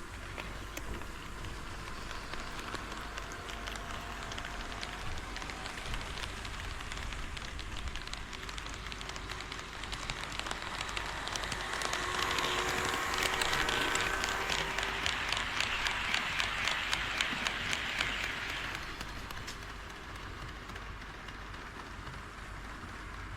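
HO scale model train rolling along its track with a steady rolling hiss. It builds to its loudest a little past halfway, with rapid clicking of wheels over the rail joints, then fades as the train moves away.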